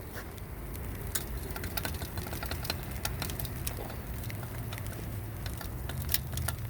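Irregular sharp ticks and crackles of freezing rain and ice pellets hitting iced-over surfaces, over a low steady hum.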